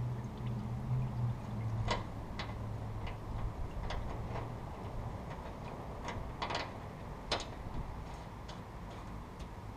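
Gasoline draining from a gas tank's drain plug into a hand-held cup. The flow dies away over the first few seconds and gives way to scattered sharp drips and clicks.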